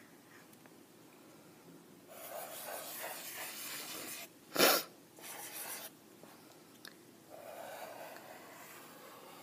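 Black Sharpie marker tip rubbing and squeaking across paper as curly lines are drawn, in stretches of strokes about 2 to 4 seconds in and again from about 7 to 9 seconds in. About four and a half seconds in, a brief loud rush of noise stands out above the drawing.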